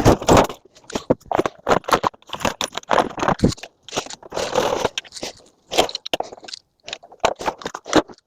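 Metal scrap being taken apart by hand to pull off its electrical contacts: an irregular run of sharp clicks, scrapes and crunches of metal parts.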